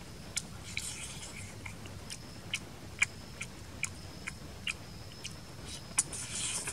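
Close-up eating of cooked balloon frog: wet chewing with sharp, irregular crunches and clicks, a few each second, as the small bones are bitten.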